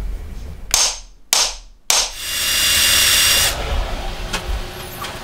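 Three sharp knocks about half a second apart, each cut off abruptly, followed by a steady high-pitched whir for about a second and a half, workshop handwork on a wooden jig block with steel parts.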